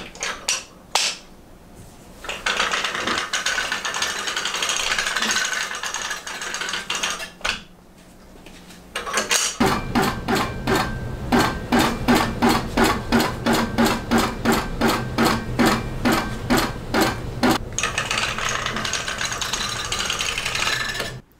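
King Quilter II longarm quilting machine sewing a long basting stitch: a steady motor hum under regular needle strokes about three a second, lasting about eight seconds in the middle. Before and after the stitching there is a steady rushing noise, with a few sharp clicks at the start.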